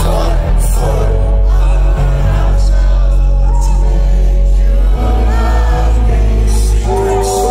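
Loud live concert music over an arena PA, heard from within the crowd: a heavy, steady bass and held synth chords under a sung vocal line. The music shifts slightly about five seconds in.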